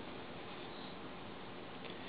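Low, steady background hiss of room tone, with one faint click near the end.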